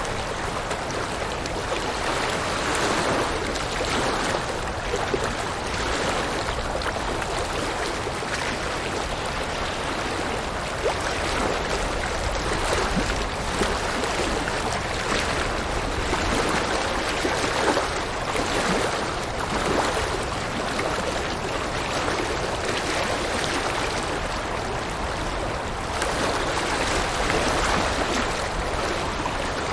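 River water flowing steadily, with small swells in level now and then.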